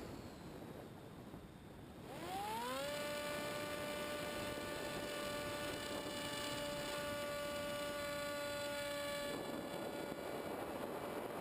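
Electric motor and propeller of a Multiplex EasyStar model plane, heard on board. Throttle is opened about two seconds in: a whine rises quickly in pitch, then holds steady. Near the end it eases off and wind rush over the airframe takes over.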